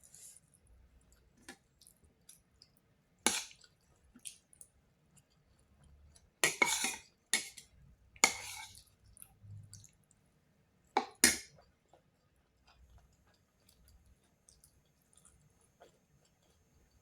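A cat eating from a dish: about six sharp crunches and clinks against the dish, spread out with quiet gaps between.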